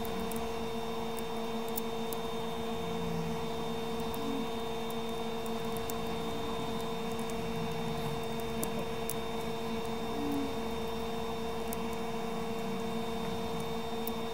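A steady electrical hum, made of several fixed tones and held at an even level, with a few faint, scattered ticks.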